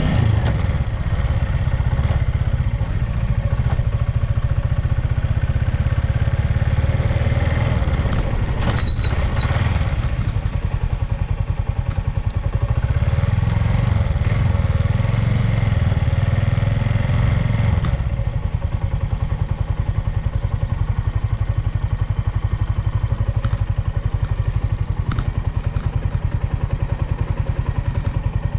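Suzuki Volty's air-cooled single-cylinder four-stroke engine running, held a little higher in the middle and then settling back to a steady idle about two-thirds of the way through. It runs with no abnormal noise, a low-mileage engine at about 7,000 km. A single sharp click about nine seconds in.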